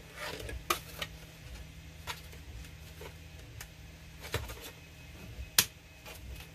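Scattered light clicks and taps of a hard plastic Nerf blaster shell and small hand tools being handled, with one sharper click about five and a half seconds in. Under them runs the steady low hum of a 3D printer working.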